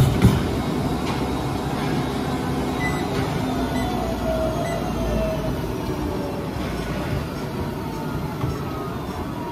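Life Fitness treadmill winding down: the motor's whine falls steadily in pitch as the belt slows from a running to a walking pace. Heavy running footfalls on the belt stop just at the start, and lighter walking steps follow.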